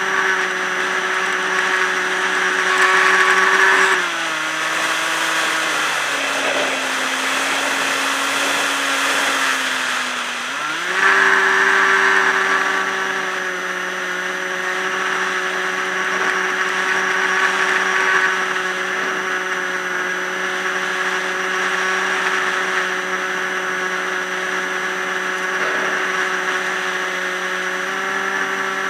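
Electric pusher motor and propeller of a Multiplex EasyStar RC plane, whining steadily as heard from a camera on board, with wind rushing past. About four seconds in the pitch drops as the throttle is eased back, and about eleven seconds in it climbs back to full power.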